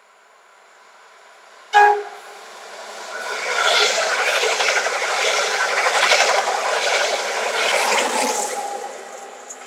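A DB double-deck regional train led by a DBpbzfa 766 control car gives one short horn blast about two seconds in. The train then passes with a steady rush of wheel and track noise that fades away near the end.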